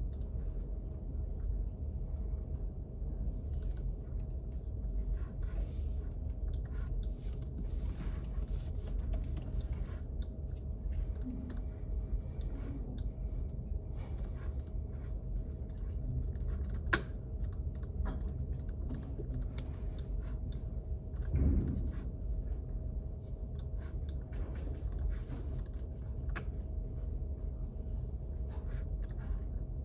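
Typing on a computer keyboard: scattered, irregular key clicks over a steady low room hum carrying a faint constant tone. A sharper click comes a little past halfway, and a louder dull thump a few seconds after it.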